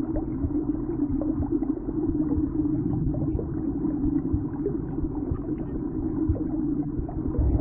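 Low, muffled, steady rumbling drone of a sound-design ambience, with a few faint clicks.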